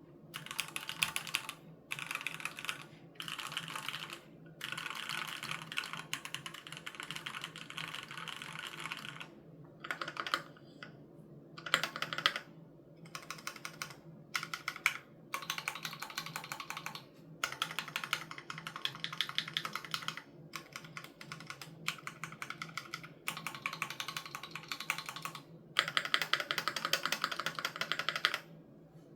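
Typing on a Keychron Q3 Knob mechanical keyboard with Gateron G Pro Red linear switches: fast runs of key clacks in bursts of a few seconds, broken by short pauses.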